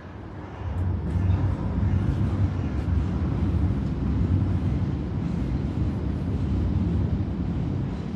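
Low, steady engine rumble that swells about a second in and holds, easing a little near the end.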